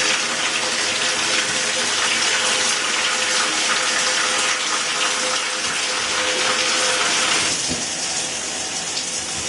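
Water spraying steadily from a newly installed 7-setting handheld-style shower head running without its water restrictor, a loud rushing hiss. The spray changes sound about three-quarters of the way through.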